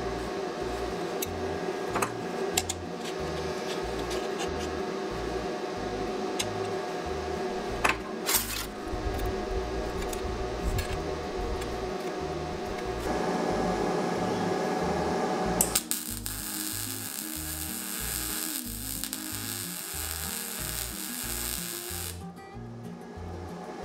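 Background music with a repeating bass pattern, over the clinks of steel flat bar and bolts being handled and fitted together. About two-thirds of the way through, a MIG welder starts hissing and crackling, stopping shortly before the end.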